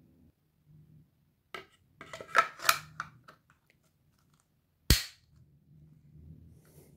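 Parts of an Akkar Churchill 206 over-and-under shotgun, its barrels and wooden fore-end, being handled: a cluster of knocks and clicks about two to three seconds in, then one sharp, loud click about five seconds in.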